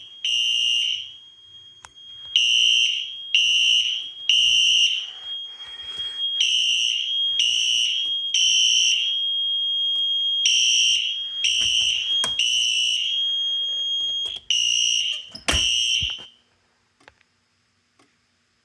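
Fire alarm horns sounding together in the temporal-three evacuation pattern: groups of three short blasts with a pause between groups. A thin steady high tone runs under most of it, and the alarm cuts off suddenly about 16 seconds in.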